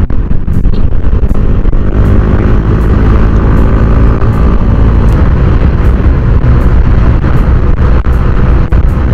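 Yamaha Mio Soulty scooter cruising on the open road, its engine running at a steady speed under heavy, gusty wind noise on the microphone.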